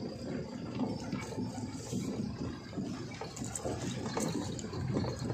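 Lorry tyres sloshing and splashing through water-filled potholes, heard from inside the cab over the truck's low running noise, with an uneven churning sound throughout.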